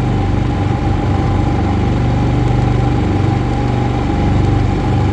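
Predator 3500 inverter generators, single-cylinder engines, running steadily side by side while paralleled under a light load of about 7 amps each from two air conditioners. The engine note is a steady drone with no surging.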